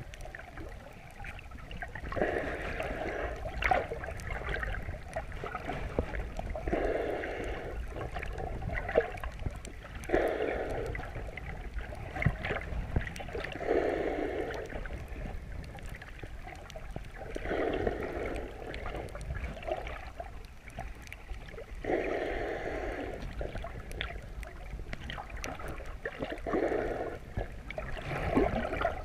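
A snorkeler breathing through a snorkel, heard muffled underwater through a chest-mounted GoPro's housing: a rushing breath about every four seconds over a steady low rumble of moving water.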